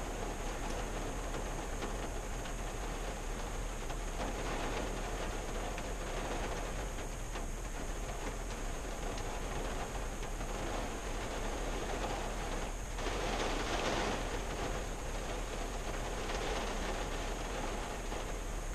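Rain falling on the roof and windshield of a 1974 Valiant, heard from inside the closed cabin: a steady patter of many drops, with a louder spell for about a second roughly two-thirds of the way through.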